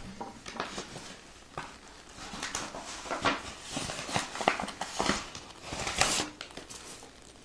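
Hands handling packaging and small items: scattered rustles and light clicks at an uneven pace.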